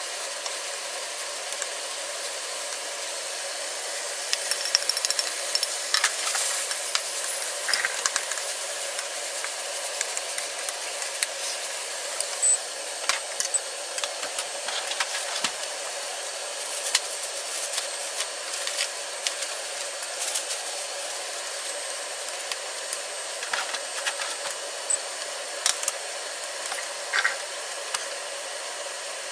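Kitchen cooking sounds: a steady hiss, with scattered clicks and knocks of utensils, busiest from about four seconds in.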